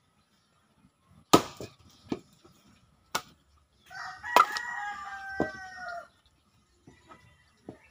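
Axe splitting firewood: several sharp chopping strikes, the first the loudest. Midway a rooster crows, one long call lasting about two seconds.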